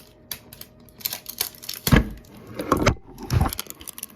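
Handling noise of a plastic slime container being fumbled with while trying to get it open: scattered clicks and crinkles, then three heavy thumps in the second half.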